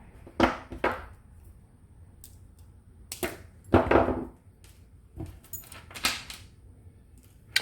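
About six separate sharp clicks and clatters, with quiet between them, from jewelry-making tools and beading parts being handled and set down on a table.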